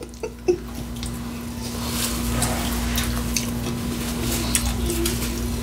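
Close-miked eating of a taco salad with Flamin' Hot Doritos: wet squishing and scattered crisp crackles, over a steady low hum.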